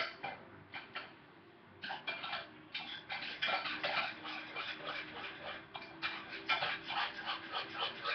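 A spoon clinking and scraping against a pot as dyed soap base is stirred while it melts. A few scattered clicks come first, then a quick, busy run of clinks from about three seconds in.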